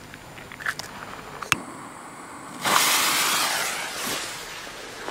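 Firework fuse catching with a sudden loud hiss partway through, spitting for a second or so and then fading out. Two sharp clicks come before it.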